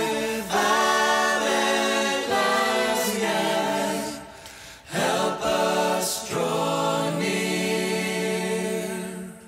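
Voices singing a slow worship song in long held notes, with a brief pause between phrases midway; the last note fades away near the end.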